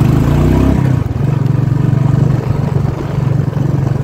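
Royal Enfield Classic 350's single-cylinder engine running steadily as the motorcycle is ridden, heard from the rider's position. A deeper rumble underneath drops away a little under a second in.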